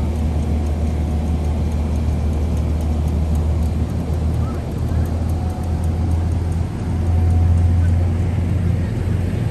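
Amtrak Amfleet passenger coaches rolling past close by: a steady low rumble of steel wheels on the rails, swelling briefly about seven seconds in.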